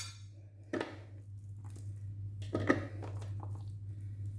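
Two soft knocks of kitchenware being handled, about a second in and again near the middle, over a steady low hum.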